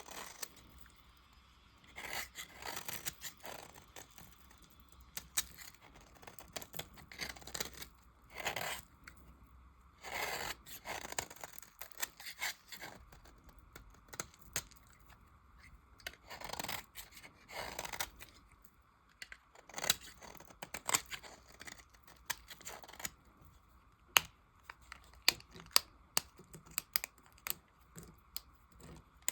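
A knife cutting through leftover soap pieces in short crisp strokes, each a brief scrape or crunch. Near the end the strokes give way to a quicker run of sharp little clicks and crackles.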